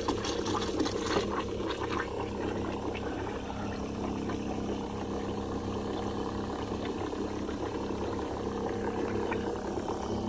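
NorthStar 12-volt electric sprayer pump running steadily, circulating a muriatic acid and water solution through a pressure washer's heater coil to descale it.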